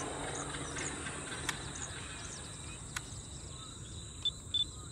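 Steady high-pitched drone of insects, with a few short, faint bird chirps and two brief high beeps near the end. Two sharp clicks about a second and a half apart in the middle.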